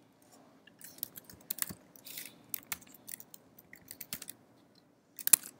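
Typing on a computer keyboard: irregular key clicks at an uneven pace, with a louder click near the end.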